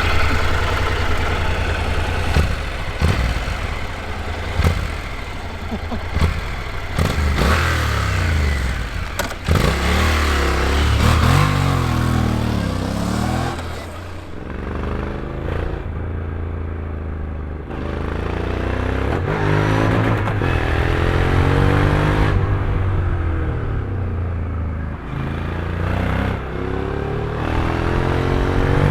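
Vehicle engines accelerating and slowing again and again, their pitch rising and falling with gear changes, with sharp clattering knocks in the first half.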